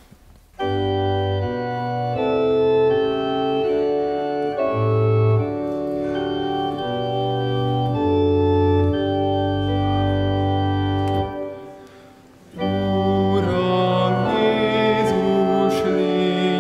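Organ playing sustained chords over a moving bass line as the closing music of a Mass. It stops briefly about twelve seconds in and resumes, and a wavering higher melody joins in near the end.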